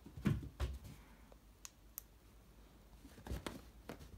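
Scattered clicks and soft knocks, about six in all, the loudest near the start.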